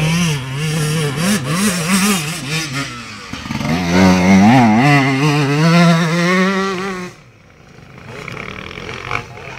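Motocross bike engine revving hard, its pitch rising and falling as the rider works the throttle on a dirt track. It is loudest as the bike passes close by about four seconds in, then drops away sharply around seven seconds in to a fainter, distant engine sound.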